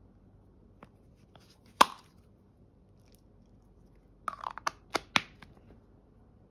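Plastic pump bottle of skin cream being handled: a sharp snap about two seconds in as the clear cap comes off, then a quick run of clicks between about four and five and a half seconds in as the pump is pressed to dispense cream.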